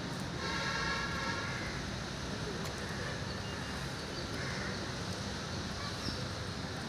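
Outdoor ambience of steady background noise. About half a second in comes a brief high-pitched call lasting about a second, and a few faint short bird chirps follow later.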